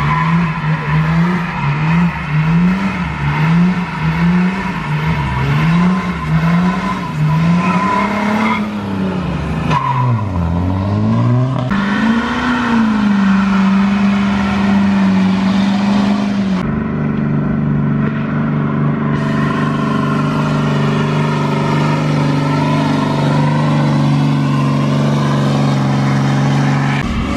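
Pickup truck engine revved hard for a burnout, its pitch climbing and dropping about once a second, then dipping and held at steady high revs while the rear tyres spin.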